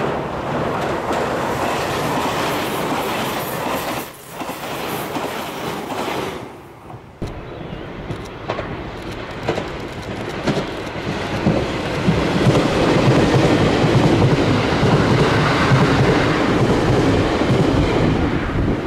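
A JR Kyushu 885 series electric limited express running over a steel girder bridge. About seven seconds in, a 787 series electric limited express approaches and passes close by, its running noise growing loudest near the end, with a rhythmic wheel clatter.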